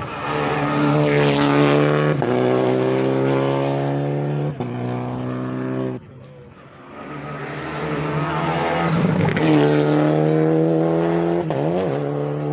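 Rally car engine at full throttle, its pitch climbing and breaking at up-shifts about two and four and a half seconds in. The sound drops off suddenly about six seconds in, then another loud run builds up and ends with a quick dip and rise in engine pitch like a downshift.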